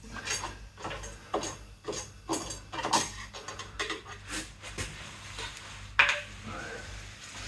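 Handling noise: an irregular run of light clicks, knocks and rustles as objects are picked up and set down, with one sharper knock about six seconds in.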